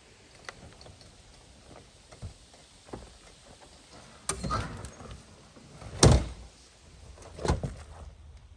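Aluminium pop-up camper roof being unlatched and pushed up by hand: a few light clicks at first, then a scraping knock about four seconds in, the loudest thump about six seconds in and another clunk a second and a half later as the roof rises and its fabric walls unfold.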